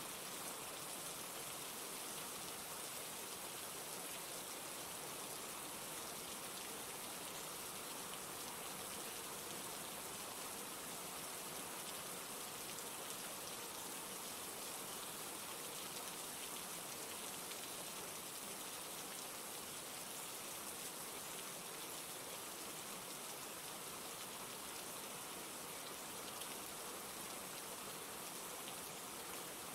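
Steady rain falling on a surface, an even hiss of many small drops with no change in intensity.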